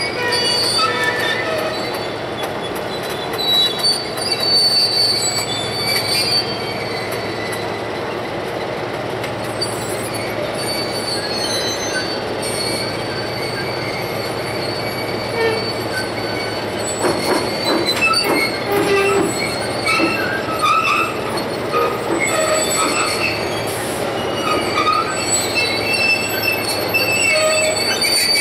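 EMD E-unit diesel locomotive creeping onto a turntable, its engine a steady low hum under repeated high squeals from its brakes on the wheels. About two-thirds of the way through comes a short run of clanks from the wheels on the rails.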